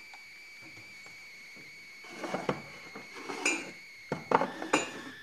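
Clinks and knocks of dishes as a mug is fetched: a quiet start, then a few separate sharp knocks and clatters from about two seconds in, the loudest one near the end.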